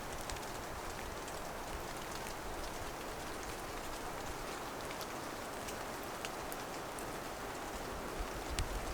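Steady hiss of light rain, with scattered small drips and ticks of drops landing.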